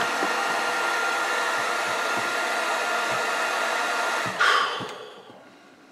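Heat gun blowing steadily with a faint whine while shrinking heat-shrink tubing over motor leads. It is switched off about four seconds in and its fan winds down, the whine falling away.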